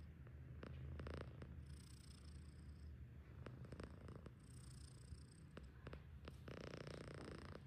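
Himalayan cat snoring in its sleep: a faint, steady low rumble, with a thin high whistle that comes and goes every two to three seconds with its breathing.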